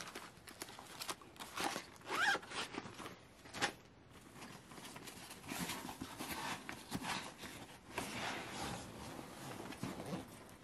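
Rustling and handling sounds as a first-aid pouch of medicine packets and a nylon tennis racket bag are handled, with irregular soft knocks and scuffs and a brief squeak about two seconds in.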